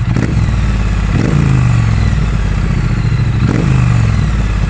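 Triumph Street Twin's 900cc parallel-twin engine with a 270-degree crank, running at idle while stationary. The throttle is blipped twice, about a second in and again about three and a half seconds in, and each rev dies back to idle.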